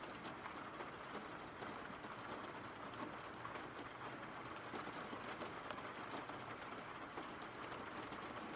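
Faint, steady rain: an even hiss of falling drops.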